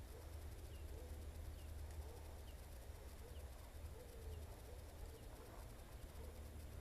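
A faint bird calling over and over, short notes about once a second, over a low steady rumble.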